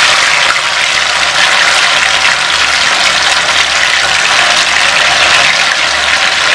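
Masala-coated fish pieces deep-frying in hot oil in a kadai: a loud, steady sizzle of bubbling oil.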